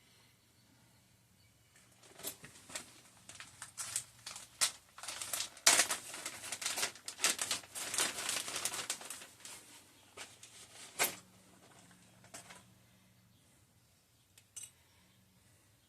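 Packaging being crinkled and handled: a run of irregular crackles for several seconds, loudest in the middle, tailing off into a few faint clicks near the end.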